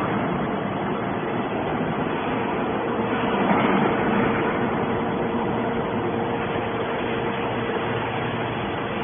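Hydraulic scrap metal baler running: a steady mechanical din with a held hum, swelling briefly about three and a half seconds in.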